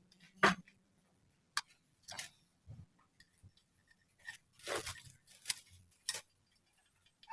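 A handful of short, sharp clicks and taps, about seven of them at irregular intervals, with quiet in between.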